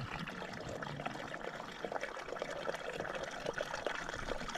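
Water trickling steadily, with a fine crackle of small splashes.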